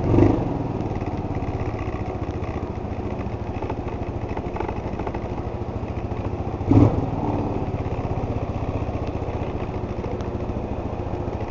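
Linhai 257cc single-cylinder four-stroke scooter engine running at low revs. It gives a short throttle blip right at the start and another about seven seconds in.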